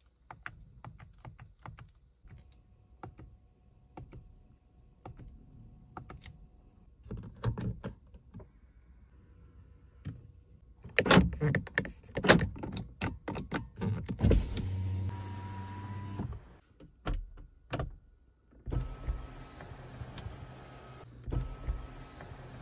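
Jeep Compass cabin switches clicking as they are pressed, then an electric window motor running for about two seconds. Later the power sunroof motor runs steadily.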